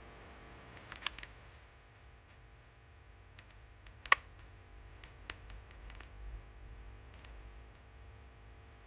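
Mechanical keyboard keys pressed a few at a time, giving scattered sharp clacks rather than steady typing. The loudest comes about four seconds in, with a faint low hum underneath.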